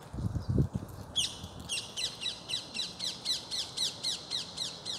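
Parakeet calling: a fast run of high, shrill, downward-sliding screeches, about four a second, starting about a second in. A few low thumps of handling noise come before it.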